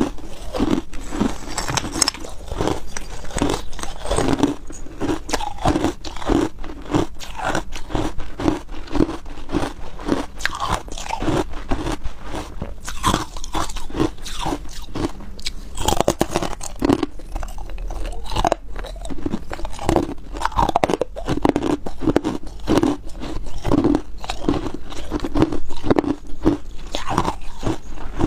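Hard ice being bitten and chewed close to the microphone: a steady run of loud crunches, about two a second. The ice is white and opaque.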